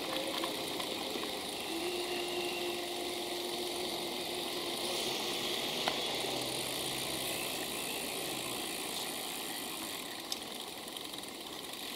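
City street traffic heard from a moving bicycle: a steady hiss of wind and road noise with the hum of nearby motor vehicles, including a held engine tone for a few seconds near the start, and a single sharp click about ten seconds in.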